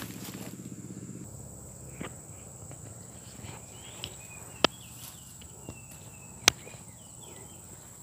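A steady high-pitched insect drone over a faint outdoor hush. It is broken by a few sharp clicks, the two loudest about two seconds apart in the second half. Faint short bird chirps come and go midway.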